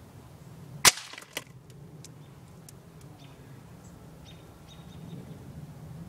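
A single gunshot at the hanging dead bird: one sharp, loud crack about a second in, followed half a second later by a fainter crack.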